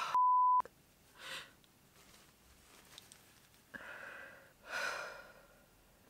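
A short, steady beep, a censor bleep, cuts in near the start. Then come crying breaths: sniffs and shaky in- and out-breaths of a woman weeping.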